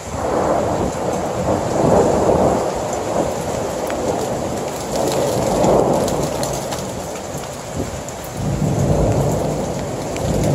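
Thunder rolling over steady rain. It breaks in suddenly, then rumbles on in several swelling waves, with a deeper rumble near the end.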